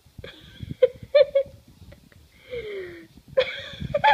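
A person's breathy, wheezing laughter in short bursts, with a longer falling breathy sound about two and a half seconds in.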